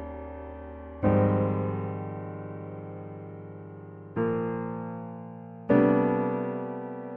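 Slow, gentle piano music: sustained chords struck about a second in, again around four seconds and near six seconds, each left to ring and fade.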